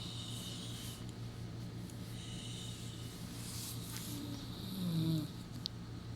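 Ama snoring in sleep: slow snoring breaths, with one louder snore about five seconds in.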